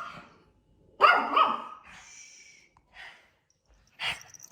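A dog barking: one loud bark about a second in, and a shorter, sharper one near the end.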